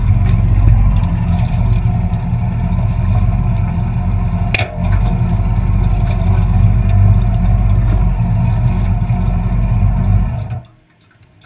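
Yamaha R6 inline-four engine running at low revs as the motorcycle rolls slowly, then switched off and falling silent abruptly about ten and a half seconds in. A single sharp click sounds about four and a half seconds in.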